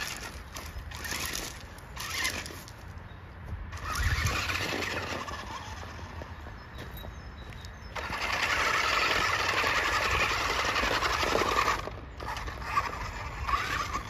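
Toy RC stunt car's electric drive motors whirring in uneven bursts as it drives, then running loud and steady for about four seconds past the middle before cutting off suddenly.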